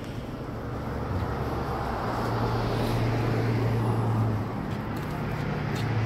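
A motor vehicle driving past on a road. Its engine hum and tyre noise swell from about a second in, and a steady low hum holds for a couple of seconds, dips, then returns near the end.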